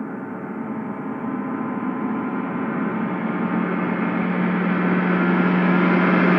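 A sustained, gong-like swell made of many steady ringing tones, growing steadily louder and brighter: an edited build-up sound effect, like a reversed gong.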